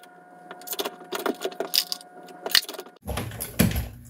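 Light metallic clicking and clinking as 9mm brass cases and bullets are handled and fed through a Dillon 550C progressive reloading press.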